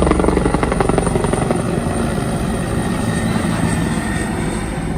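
Rescue helicopter running close by: a steady loud rotor beat with a thin high whine over it.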